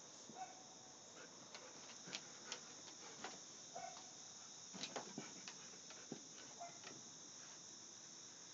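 Dog's claws clicking and ticking irregularly on wooden deck boards as it moves about, over a faint steady high insect chorus.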